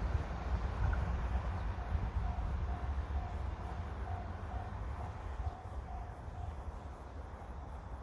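Low rumble of a JR 383-series limited-express train receding, fading steadily, mixed with wind buffeting the microphone. A faint tone pulses about two to three times a second until about six and a half seconds in.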